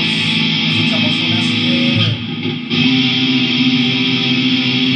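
Distorted electric guitar playing held chords through an amplifier. The chords break off briefly about two seconds in and then ring on again.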